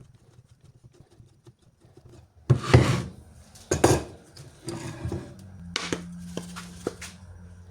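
Hard objects being handled on a workbench: faint ticking, then three loud scraping clatters about a second apart, followed by a low steady hum with light clicks.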